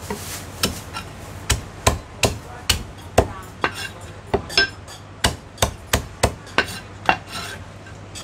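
Chinese cleaver chopping meat on a thick round wooden chopping block: a run of sharp chops, roughly two a second, stopping shortly before the end.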